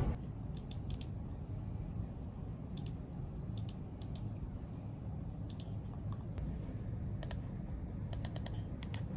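Computer mouse buttons clicking, scattered single and double clicks with a quick run of clicks near the end, over a steady low room hum.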